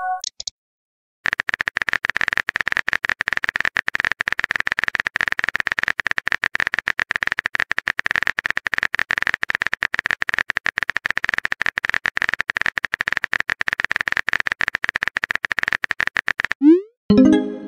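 Rapid key-tap clicks of a texting app's on-screen phone keyboard as a message is typed out, a steady stream starting about a second in and stopping near the end. Right after, a short rising swoop and a few bright electronic notes: the message-sent chime.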